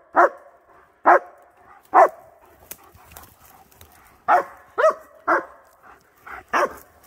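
A German shepherd barks repeatedly: three loud barks about a second apart, a pause, then a quicker run of three barks followed by two softer ones near the end.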